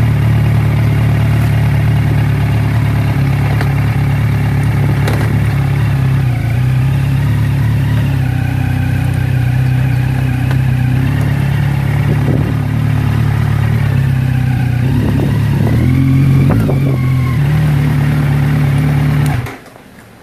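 An engine running steadily, its pitch shifting slightly a few times, until it stops abruptly near the end.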